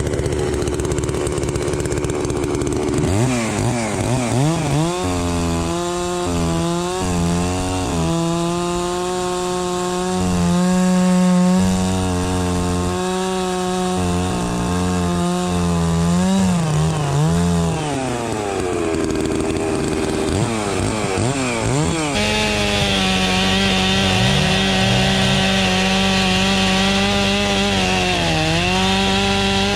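Holzfforma two-stroke chainsaw revved up about three seconds in and cutting wood, its engine note sagging and recovering again and again as the chain loads in the cut, then running steadier near the end.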